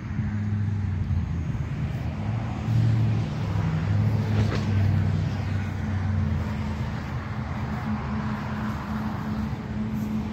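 A nearby engine idling with a steady low hum, and a brief tick about halfway through.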